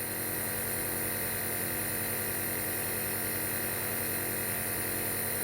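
Small home nebulizer running with a steady electric hum while it mists the medicine.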